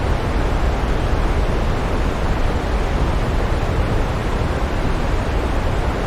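Waterfall running in a steady rushing roar of falling water, even and unbroken, heaviest in the low end.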